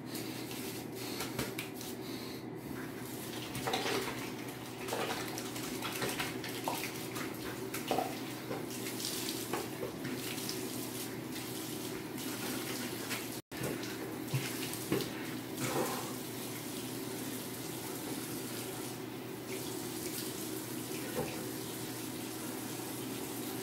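Bathroom faucet running steadily into the sink while hands rub and splash under the stream, with scattered short splashes.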